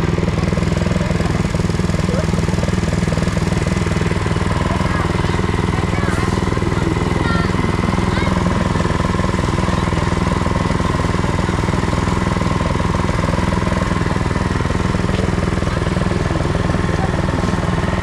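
Small gasoline engine running steadily, driving a grinding mill that grinds sesame seeds fed from its hopper.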